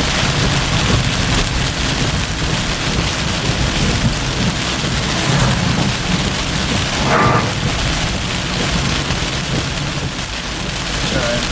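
Heavy rain falling steadily on a car, heard from inside the car, with a low rumble underneath.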